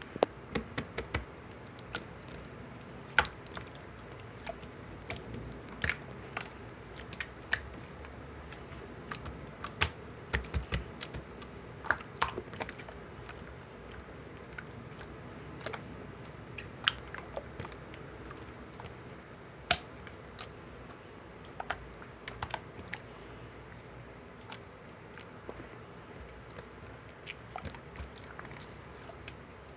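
Irregular sharp clicks and taps, scattered one by one and now and then in quick clusters, over a steady low background hum.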